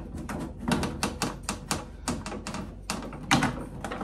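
Irregular clicks and knocks, several a second, from a screwdriver and hands working the plastic control fascia of a Baxi Duotec boiler as it is unscrewed and pulled down. The loudest knock comes about three seconds in.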